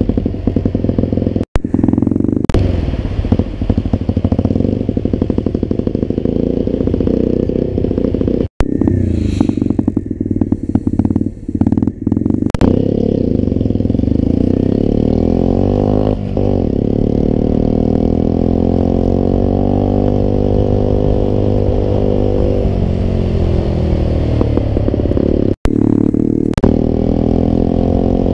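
Motrac M5 mini motorcycle engine running under way, its pitch rising and falling with the throttle and gear changes, with a long climb in revs about halfway through that eases back off later. The sound drops out for an instant three times.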